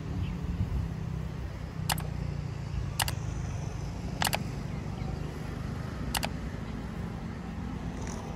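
Low steady rumble of a diesel railcar's engines in the distance. Four short sharp clicks come about two, three, four and six seconds in.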